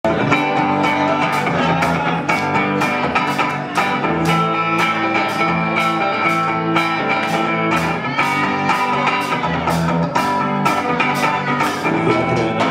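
Live rock band playing an instrumental intro: electric guitar over a drum kit keeping a steady beat.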